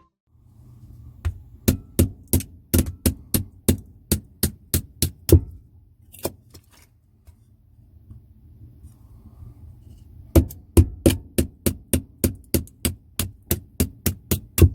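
Rapid, evenly spaced tool blows on firewood, about three a second, in two long runs with a few single strikes between them.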